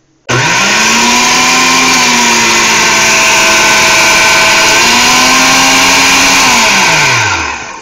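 Old metal General Electric blender's motor running with the jar off, the bare drive coupling spinning: it starts suddenly and spins up to a loud steady whine with a hiss over it, its pitch sags a little about two seconds in and climbs again about five seconds in, then winds down and stops near the end. The old motor works but gives off a smell of burning electronics.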